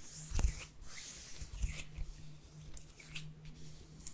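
Soft rustling and rubbing close to a sensitive microphone, with a light knock about half a second in and a quieter one past a second and a half, over a steady low hum.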